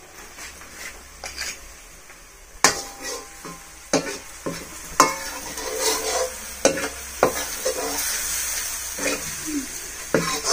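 Food frying in hot oil in a metal wok, sizzling, while a spoon scrapes and knocks against the pan as it is stirred. The sizzle grows louder from about halfway through.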